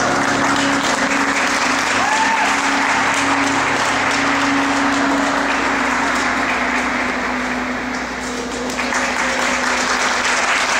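Audience applauding steadily, with a few short calls from the crowd; the applause eases briefly about eight seconds in, then picks up again.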